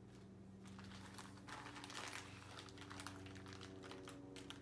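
Faint clicking and rustling of volcano-kit pieces and packaging being handled while the kit is unpacked, over a steady low hum.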